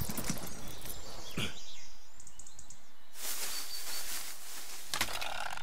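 Forest ambience: a steady high hiss with birds chirping, a quick run of short chirps a little over two seconds in and a brief thin whistle a second later.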